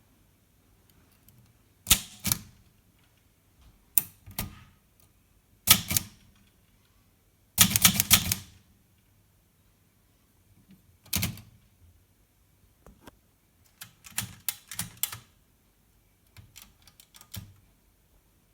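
Olivetti Lettera 32 portable typewriter being typed on: sharp key strikes in short, irregular bursts with pauses between, including a quick run of strikes about eight seconds in.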